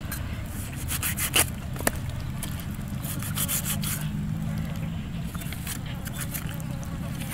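Knife blade scraping the skin of a dog's head in quick repeated strokes, with two sharp clicks about a second and a half in, over a steady low hum.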